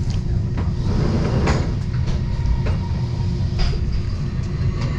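Passenger train running along the track, heard from inside the carriage: a steady low rumble with occasional sharp clicks.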